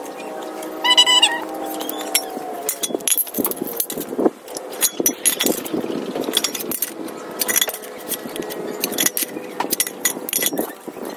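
Light metallic clicks and clinks as a try square and marker are set against and moved along a thin steel square tube while a cut line is marked. A brief ringing tone sounds about a second in.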